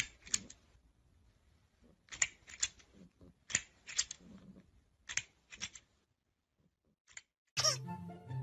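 Sharp clicks or taps in quick pairs, a pair about every second and a half, as a cat paws at a toy crocodile. Music starts near the end.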